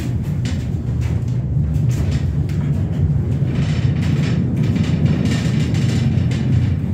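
Observatory dome being turned by hand, rotating on its track with a steady low rumble and light clicks and rattles.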